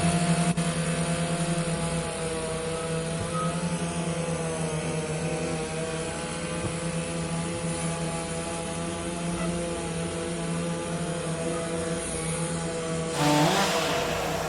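An engine running at a steady speed, its even hum holding unchanged. About thirteen seconds in, a louder burst of rushing noise comes in over it and eases off after a couple of seconds.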